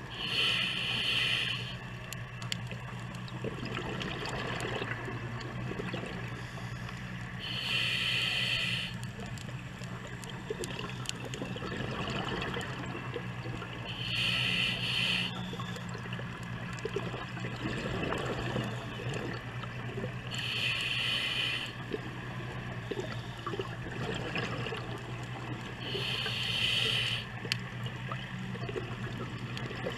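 Scuba diver breathing through a regulator underwater: a burst of exhaled bubbles about every six seconds, five times, over a steady low hum and hiss.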